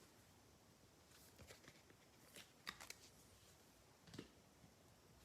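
Faint, brief rustles and clicks of trading cards being handled and slid one behind another, half a dozen soft strokes with near silence between them.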